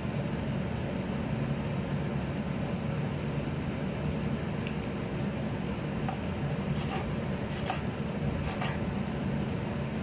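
A knife cutting lettuce on a cutting board, a handful of light separate clicks, over a steady low hum like a fan or air conditioner.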